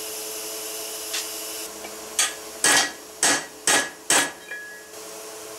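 Five hammer blows, about half a second apart, on an aluminium bearing installation tool, driving a pinion bearing race into the cast differential housing (third member) of a Suzuki Samurai rear axle; the strikes carry a short metallic ring. A steady hum runs underneath.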